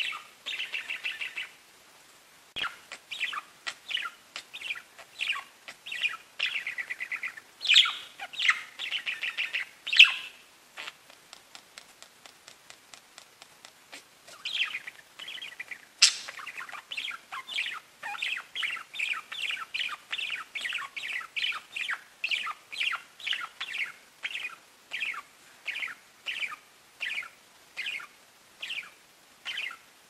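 Pet budgerigars chirping and warbling: bursts of fast chattering song, a quieter stretch about halfway through, then a steady run of short chirps, about two a second.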